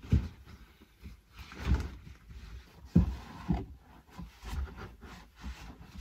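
A new carpet being handled and pressed into a car's rear cargo area: rubbing and rustling with a few dull thumps at irregular moments.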